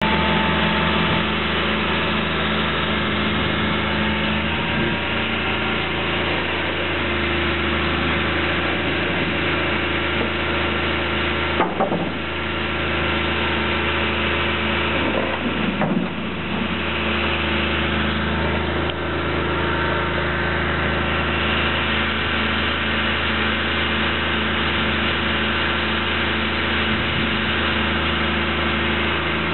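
Flatbed tow truck's engine running steadily at idle while the truck loads a car, with two short knocks a few seconds apart partway through.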